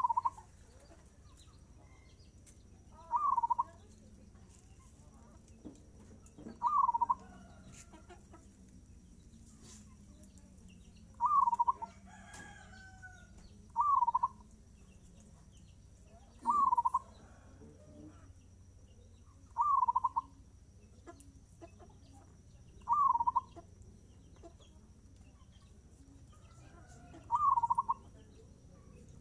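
A caged zebra dove (perkutut) singing its short cooing phrase over and over, about nine phrases, each roughly half a second long and a few seconds apart.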